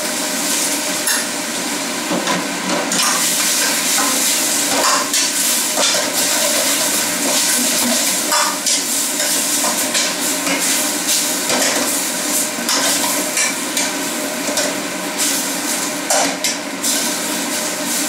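Jumbo prawns in sauce sizzling hard in a pan over high heat as the sauce reduces to a glaze, with a metal ladle stirring, scraping and knocking against the pan again and again.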